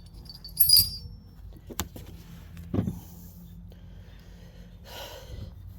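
Metal hand tools being handled and set down: a bright, ringing metallic clink about a second in, then a sharp click, a knock, and a soft rustle near the end.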